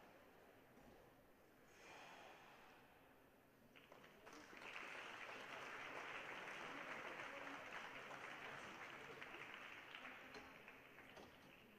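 Faint applause from a small crowd in an ice rink, starting about four seconds in, holding steady and fading near the end.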